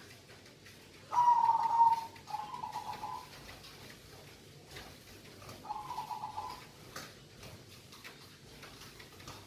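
Zebra dove (perkutut) cooing: a loud coo about a second in, followed at once by a softer one, then another phrase about six seconds in.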